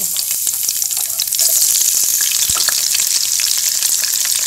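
Garlic chunks and whole spices sizzling in hot mustard oil in a frying pan, a dense hiss with fine crackling pops; the sizzle grows louder about a second and a half in.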